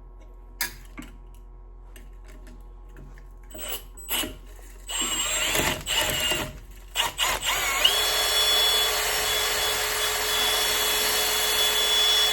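Power drill spinning a homemade sandpaper hone inside a brake master cylinder bore: a few handling clicks, then the drill runs in short bursts about five seconds in and steadily from about eight seconds in.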